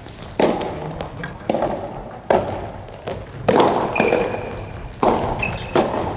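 Soft tennis rally: sharp pops of the rubber ball off racket strings and the court, about six in all, each ringing out in the hall's echo. A few short high squeaks come near the end.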